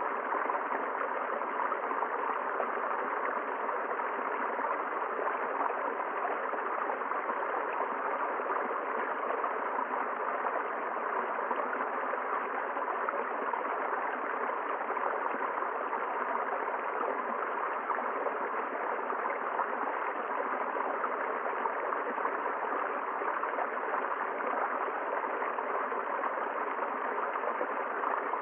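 River water flowing steadily, an even, unbroken rush of water with no other distinct sounds.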